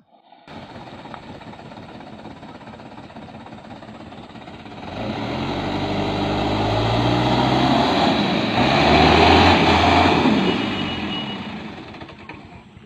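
Diesel engine of a loaded Mitsubishi light truck working under load on a rough dirt track. Its pitch wavers, and it grows louder from about five seconds in, is loudest near nine to ten seconds, then dies away.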